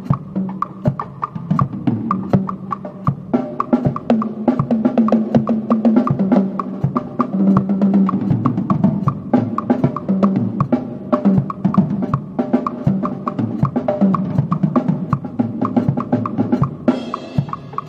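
Acoustic drum kit playing a busy Adowa groove, a Ghanaian Akan rhythm, in quick strokes across the snare, toms and bass drum. A cymbal crash comes near the end.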